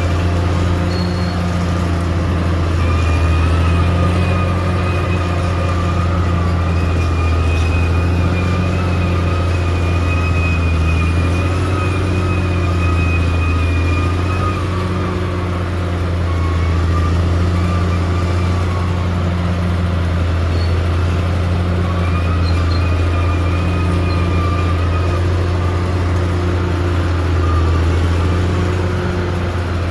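Caterpillar D6R XL bulldozer's diesel engine running steadily under work, a deep constant drone. A thin high whine wavers in and out over it.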